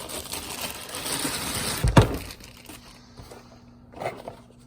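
Packaging rustling and crinkling as a new cordless tool is taken out of its box, with one sharp knock about two seconds in, then a few light clicks of handling.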